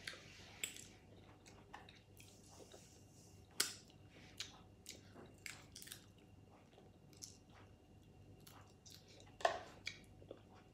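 A person eating cooked crab with her fingers: chewing, with many short, irregular crackles and clicks, two of them louder, about three and a half seconds in and near the end.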